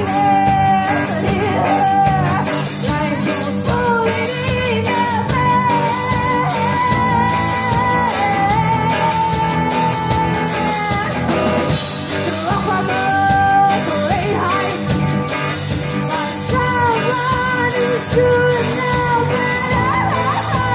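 Live rock band playing with a female lead singer: electric guitars, a drum kit keeping a steady beat with cymbal hits, and keyboard under a sung melody.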